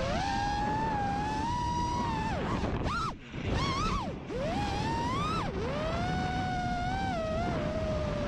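FPV quadcopter's brushless motors whining, the pitch rising and falling with the throttle. The pitch drops sharply several times around the middle, with a brief throttle chop near the middle, then holds steadier.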